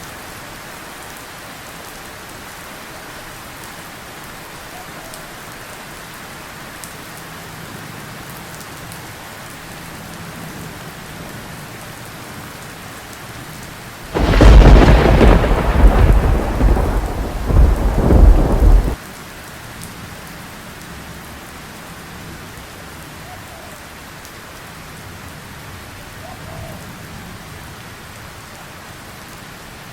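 Steady rain falling, with a loud, close thunderclap about halfway through. It opens as a sharp crack, rumbles on for about five seconds, and stops abruptly.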